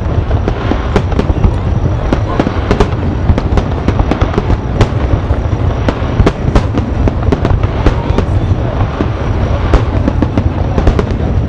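Fireworks display: aerial shells bursting in quick succession, many sharp bangs and crackles over a steady low rumble.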